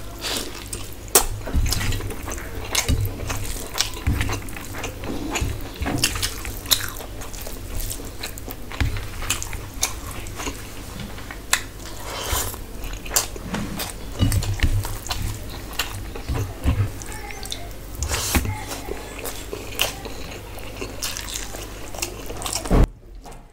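A person chewing mouthfuls of rice and curry eaten by hand, with frequent wet smacking clicks. It cuts off abruptly near the end.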